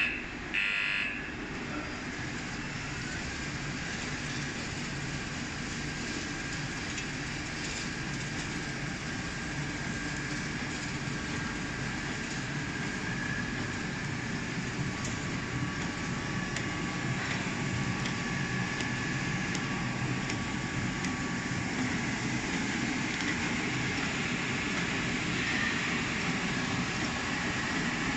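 Heat-shrink packaging machine for paired 9V batteries running: a steady mechanical whir and hum from the conveyors and rollers, with a faint thin whine and occasional light clicks. A short high beep sounds in the first second.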